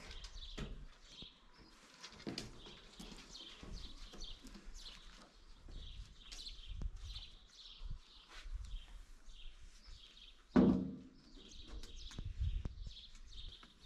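Small birds chirping in short, repeated calls, with one loud thunk about ten and a half seconds in and a few soft knocks after it.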